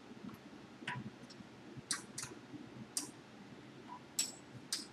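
Faint, sharp metallic clicks and clinks, about six, irregularly spaced, as a wrench is fitted to and turned on nuts and bolts being tightened.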